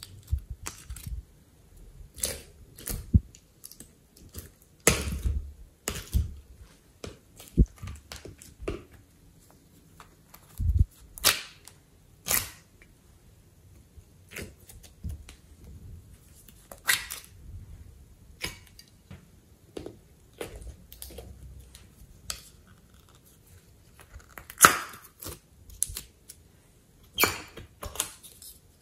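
Hands squeezing soft clay and pressing it into slime, making irregular short sticky clicks and squishes with pauses between them.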